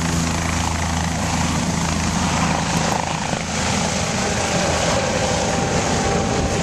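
Helicopter lifting off and climbing away at full power. A steady low rotor tone fades within the first half second, leaving a loud, even rush of rotor and engine noise.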